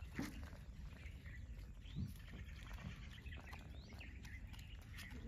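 Faint outdoor ambience: a steady low rumble with a few short, faint bird chirps and a couple of brief soft sounds, one just after the start and one about two seconds in.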